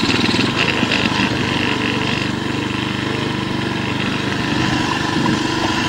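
Quad bike engine running steadily at an even speed, with no revving.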